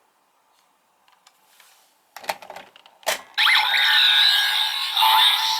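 A few plastic clicks of a Kamen Rider Gavv DX toy being handled, then its electronic sound effect playing loudly through its small speaker, with gliding tones and beeps, for about two seconds.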